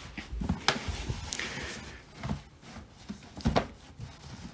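A cardboard sneaker shoebox being handled and taken out of a cardboard shipping box: several light knocks and scrapes of cardboard.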